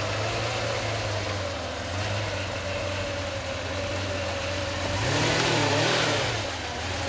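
McLaren F1's BMW V12 running at low revs as the car creeps along. About five seconds in there is a brief throttle blip that rises and falls back.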